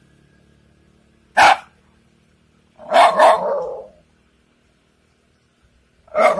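Shiba Inu barking: one sharp bark about a second and a half in, two barks in quick succession about three seconds in, and another starting near the end.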